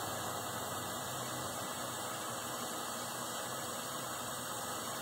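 Steady, even hiss of a running hydronic test rig: water flowing through the coil's pipework while a temperature control valve throttles the flow.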